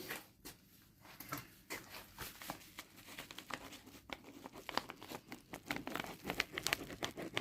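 Irregular rustling, crinkling and small scratchy clicks: a paper towel wiping grease residue off a freshly assembled pen.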